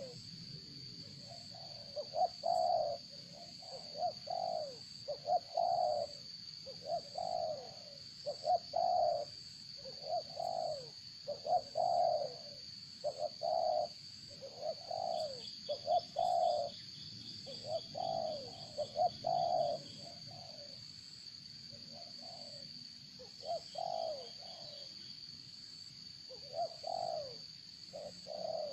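A bird cooing over and over in short, low phrases, with a steady high-pitched tone behind it and a few faint, rapid chirps near the middle.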